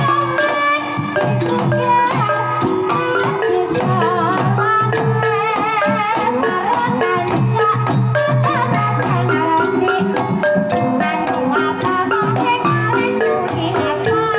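Live Banyumasan gamelan playing a tayub piece: a kendang hand drum and struck bronze pot gongs over ringing keyed instruments, with a wavering sung line from a sindhen around the middle.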